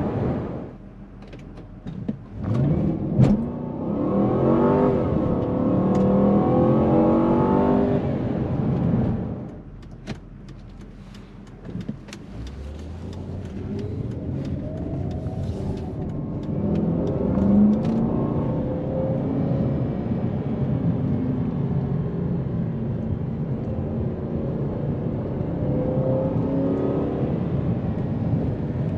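2007 Volvo S80's 4.4 V8 engine heard from inside the cabin, rising in pitch as the car accelerates a few seconds in. It drops away around nine seconds, with a run of sharp clicks as the car slows, then pulls steadily again with road noise.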